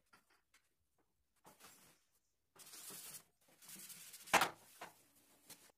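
Faint cloth-on-metal rubbing as a motorized bicycle's frame and rear fender are polished by hand: a few soft wiping strokes, then one sharp knock about four seconds in and a couple of light ticks.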